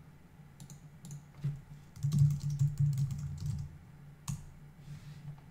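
Typing on a computer keyboard: a few scattered keystrokes, then a quick run of typing about two seconds in and a single sharp click near the end, over a steady low hum.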